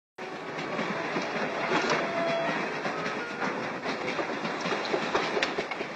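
Passenger train running, a steady rumble with the clatter of the wheels, heard from inside the compartment, with a few sharp clicks over it.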